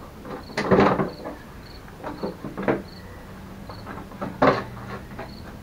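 Hard plastic body panels of a mobility scooter being handled and fitted, giving knocks and clatters; the loudest come about a second in and again about four and a half seconds in.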